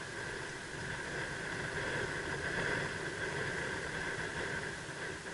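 Steady hiss of wind and sea, with no distinct event.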